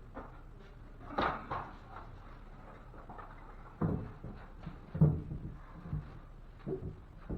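Several irregular wooden knocks and thumps, the loudest about five seconds in, from a 2x4 wood backing board being handled and knocked into place in a ceiling opening.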